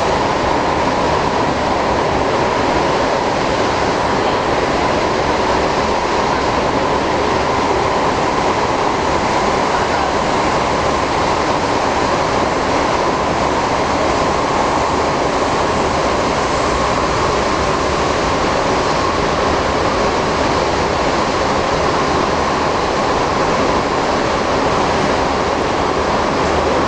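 Singapore MRT train running, heard from inside the carriage: a steady, even drone of wheels on rail and traction motors.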